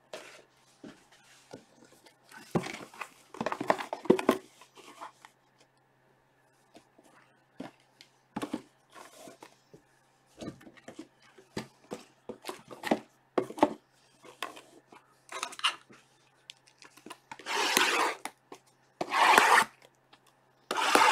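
Sealed, plastic-wrapped trading-card boxes being handled and stacked on a table: scattered light taps, scrapes and rustles of cardboard and wrap, with two longer rustles about a second apart near the end.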